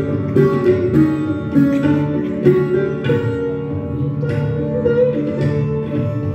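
Sitar playing a melody of plucked notes with tabla accompaniment, one note bent upward about five seconds in.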